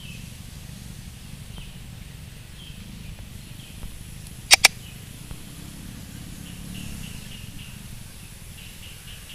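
Steady low background hum and hiss with faint, scattered short chirps. About four and a half seconds in comes a sharp double click, two clicks in quick succession, like a computer mouse click.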